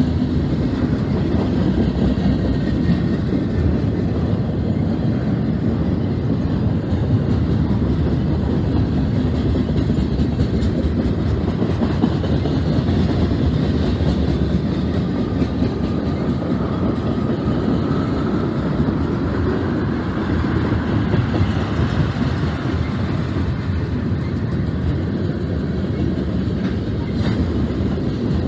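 Cars of a mixed freight train (boxcars, tank cars, flatcars) rolling past at close range: a steady rumble of steel wheels on rail with the clickety-clack of wheels over the rail joints.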